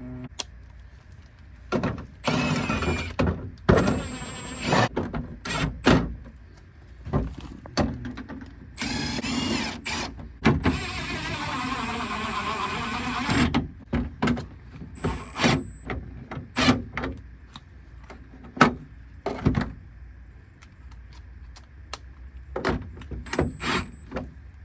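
Power drill running in several bursts of one to three seconds, its motor whining and changing pitch as it drives bolts into a BMW E36 door card, with knocks and clicks from handling the panel and hardware in between.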